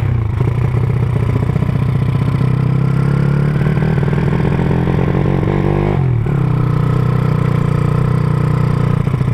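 Honda Supra motorcycle's single-cylinder four-stroke engine, bored out to 200 cc, running steadily through a CJDW aftermarket exhaust while riding. About six seconds in, the engine note dips sharply, then picks up again.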